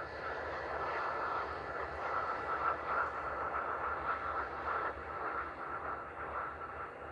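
Airbus A320-family airliner's twin jet engines running at low taxi power: a steady high whine over a hiss and a low rumble.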